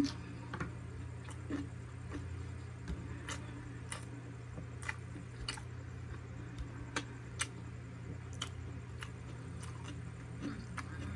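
Eating siomai with chopsticks close to the microphone: irregular sharp clicks of chewing and handling, about one or two a second, with a loud click right at the start, over a steady low hum.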